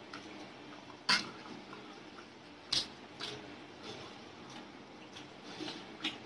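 People eating rice and chicken curry by hand: soft wet chewing and squishing with three sharp smacking clicks, the loudest about a second in.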